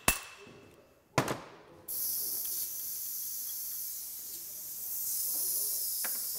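A copper hammer strikes the nut on the end of a Honda Camino PA50 crankshaft held in a bearing splitter, knocking the crank out of its worn main bearing. Two sharp metallic blows land, one at the start with a brief ring and one about a second in. From about two seconds in a steady high hiss sets in.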